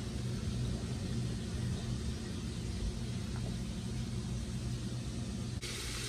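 A steady low mechanical rumble with a faint hiss, even throughout.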